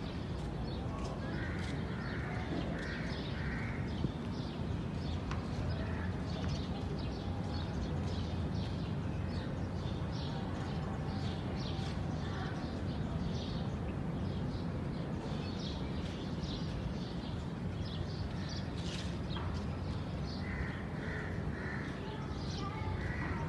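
Crows cawing in short runs of about four caws, once early and again near the end, with small birds chirping throughout over a steady low rumble.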